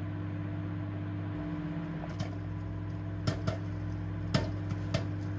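Microwave oven running with a steady hum while popcorn kernels in a bag start to pop: a few single sharp pops, spaced apart, beginning about two seconds in.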